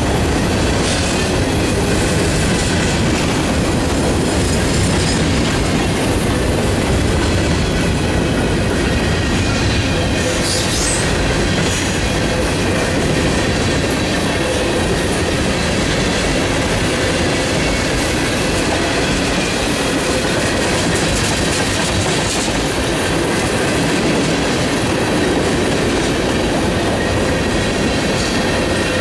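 Freight cars (covered hoppers, then tank cars) rolling past at close range: a steady rumble of steel wheels on rail with clickety-clack over the rail joints and thin, high wheel squeal.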